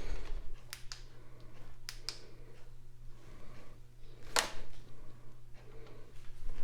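A few scattered sharp clicks and light taps of objects being handled, the loudest about four seconds in, over a steady low hum.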